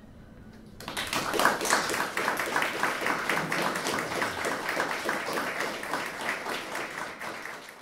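Audience applause, made of many hands clapping, breaks out suddenly about a second in and keeps going.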